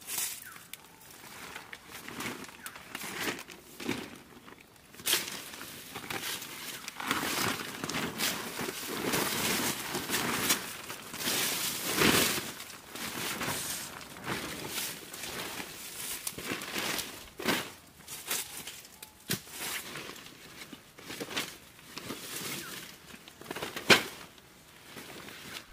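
Plastic tarp crinkling and rustling in irregular bursts as it is unfolded, shaken out and spread on the ground, busiest midway. There is one sharp click near the end.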